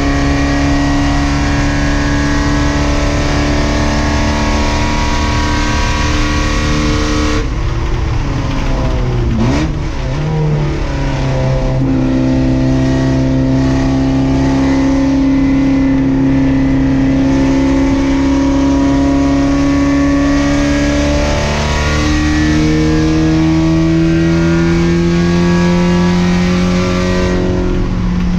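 Race car engine running hard, heard on board at racing speed. Its pitch drops and climbs again about nine seconds in, then holds steady on a long stretch and rises slightly near the end.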